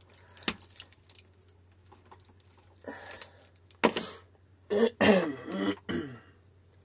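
A man clearing his throat and coughing, loudest for about a second near the end. Before it come a few sharp clicks from handling tools or connectors on the bench.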